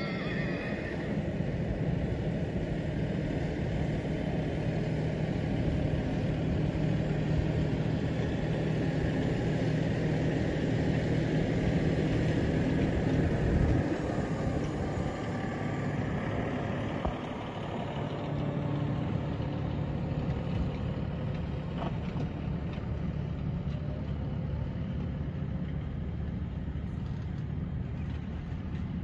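Steady low hum of an idling vehicle engine, easing slightly about halfway through.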